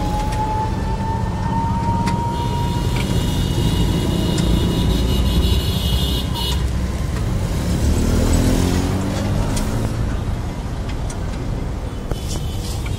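Road traffic rumbling steadily, with a vehicle passing about eight seconds in. A thin high whine runs from about two to seven seconds in.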